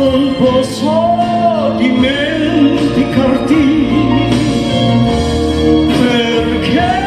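A singer holding and sliding between long notes with a wide vibrato over an instrumental backing track of sustained chords and bass.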